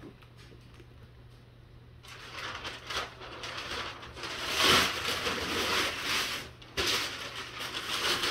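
Packing material rustling and crinkling inside a cardboard box, starting about two seconds in and continuing in uneven handfuls.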